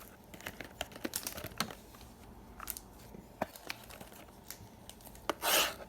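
A trading-card box and its wrapping being opened by hand: scattered small clicks and light crinkling, then a short, louder rip about five and a half seconds in.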